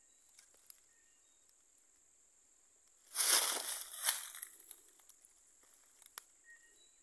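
Thin steel wire being pulled tight and twisted around a rubber tree's trunk. There are a few faint clicks, then about three seconds in a noisy scraping rustle of wire against bark that lasts about a second and a half.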